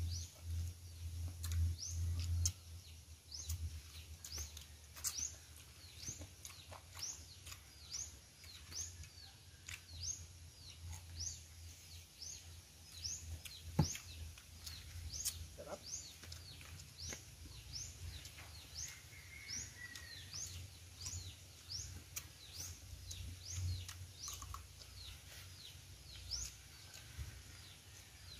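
A bird calling from the surrounding trees: a short high chirp falling in pitch, repeated steadily about every half second. One sharp click stands out about halfway through.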